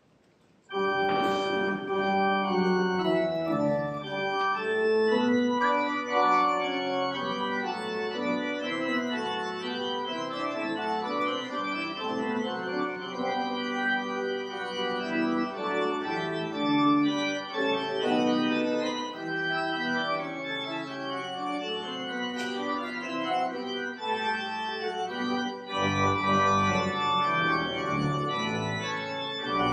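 Church organ starts playing about a second in: a sustained piece of held, shifting chords. Deeper bass notes come in near the end. As it follows the closing benediction, it is the organ postlude that ends the service.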